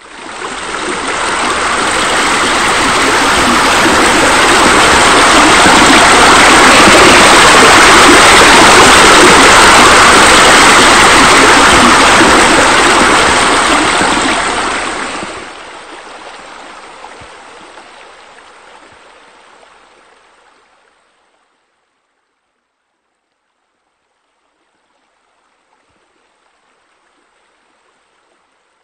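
Loud rushing water. It comes in suddenly, holds steady, then drops away after about fifteen seconds and fades out, with a faint trace returning near the end.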